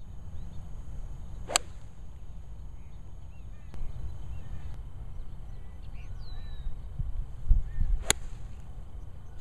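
Two crisp strikes of a golf club hitting a ball, about six and a half seconds apart. They sound over a steady low rumble, with a low thump just before the second strike.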